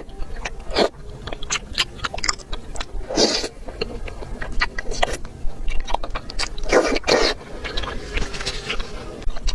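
Close-miked eating of mala xiang guo (spicy stir-fry): steady chewing with many quick wet clicks, and two louder crunching bites, about three seconds in and near seven seconds.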